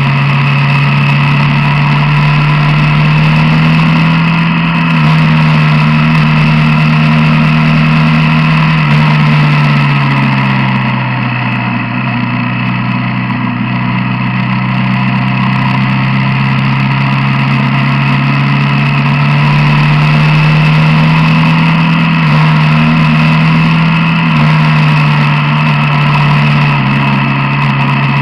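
Quad bike's engine running while riding along a road, its pitch steady, then falling as it slows about ten seconds in and rising again as it speeds up about twenty seconds in.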